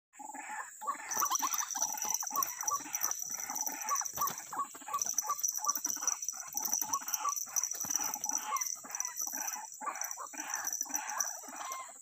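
White-breasted waterhen (ruak-ruak) calling, a rapid series of repeated notes, two or three a second, with a steady high whine behind them.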